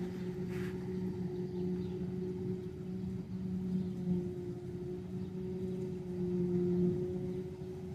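Heavy farm machinery engine running steadily, a constant low drone with an even hum.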